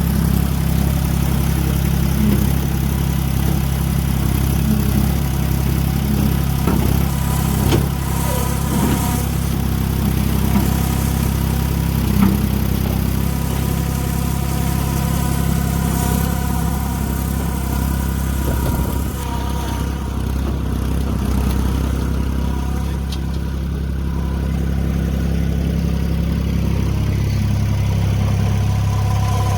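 International 4140 skid-steer loader's diesel engine running steadily, with a few sharp clanks and knocks in the first half. The engine note shifts near the end.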